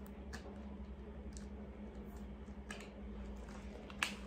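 Quiet room tone with a steady low hum and faint scattered clicks from objects being handled, with one sharper click near the end.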